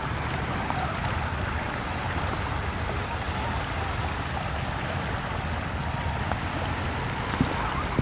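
Small waves washing steadily onto a sandy beach, an even wash of surf noise, with one brief knock about seven seconds in.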